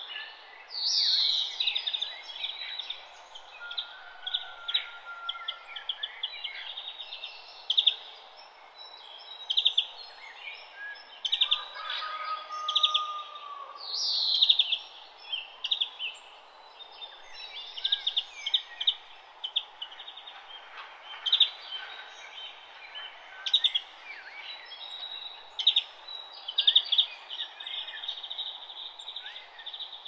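Several forest birds singing and calling at once: quick repeated chirps and trills throughout, two loud falling whistled sweeps, one about a second in and one near the middle, and two longer held whistles, over a steady background hiss.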